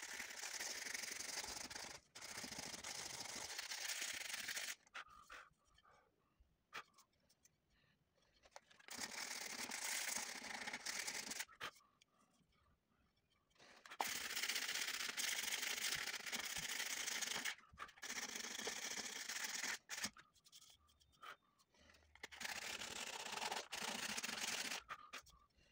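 Sandpaper rubbed by hand along an old turned wooden furniture part, sanding off old grime: a fast, scratchy rasp in five bouts of a few seconds each, with short pauses between.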